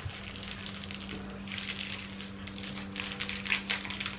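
Faint scattered clicks and rustles of small objects being handled, over a steady low electrical hum.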